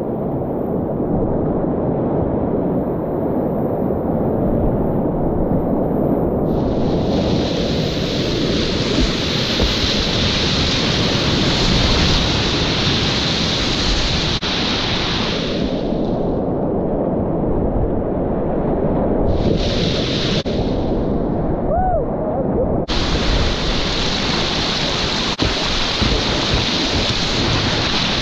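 Whitewater rapids rushing around and under a kayak: a steady low rumble of moving water, with a brighter hiss of splashing that comes in from about six to sixteen seconds in, briefly near twenty, and again from about twenty-three seconds as the boat runs through the waves.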